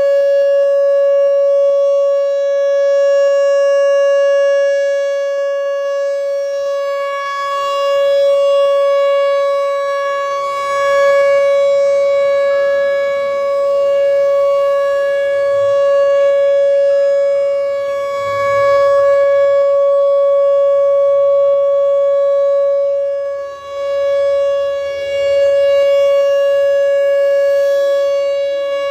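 Whelen WPS-4004 electronic outdoor warning siren sounding a steady alert tone at one unchanging pitch. It swells and fades every few seconds as its rotating speaker array turns.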